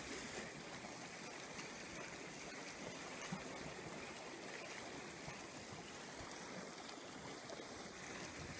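Steady, even hiss of seawater washing below a seawall, with no separate waves standing out. A single faint click about three seconds in.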